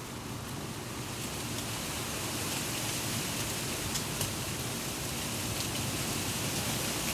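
Wind gusting through the leaves of a treetop, a dense rustling that builds in strength, with scattered light ticks of falling leaves.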